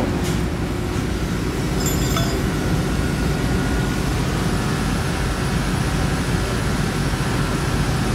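Steady low drone of industrial plant machinery, with a brief light metallic clink about two seconds in.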